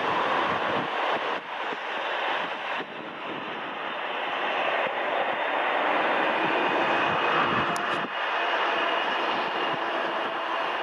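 Jet engines of a Boeing 747-8F freighter running as it taxis: a steady jet rush with a faint whine that comes in about seven seconds in.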